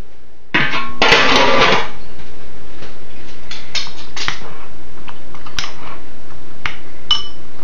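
Kitchenware being handled: a loud scraping rustle lasting about a second, starting shortly after the start, then scattered light metal clinks.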